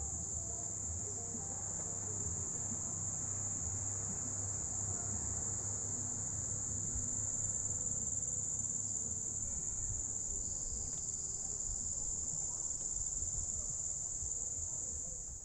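Steady high-pitched insect chorus, an unbroken shrill buzz that cuts off suddenly at the end.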